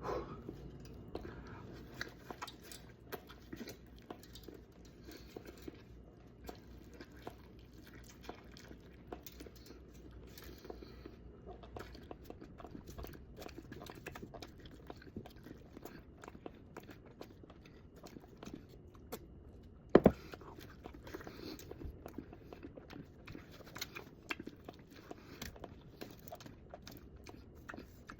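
Someone chewing and biting into a giant burrito at speed, close to the microphone: a steady run of wet mouth clicks and smacks, with one much louder knock about two-thirds of the way through.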